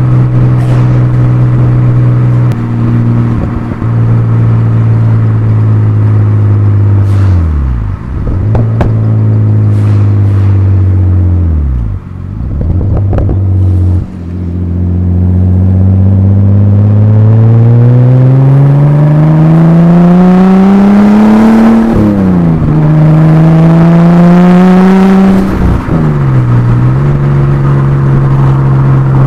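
Exhaust of a Nissan RB25DET Neo turbocharged straight-six in an R31 Skyline, heard from the rear of the moving car. It runs at a steady cruise, engine speed falls away sharply twice, then a long pull with rising pitch, a brief dip about two-thirds through, a second rise, and a drop back to steady cruising near the end.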